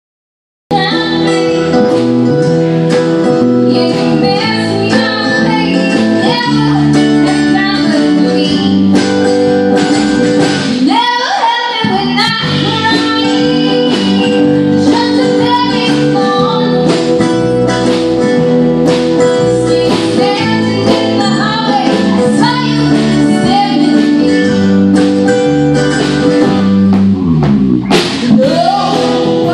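Live band playing, with a woman singing lead over acoustic guitar, mandolin, bass and drums. The music cuts in abruptly just under a second in and runs loud and steady.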